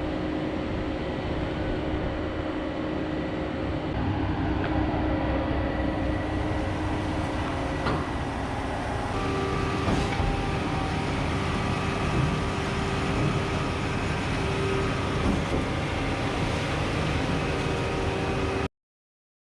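Steady rumble of a moving vehicle, with a few faint steady tones above it, cutting off abruptly near the end.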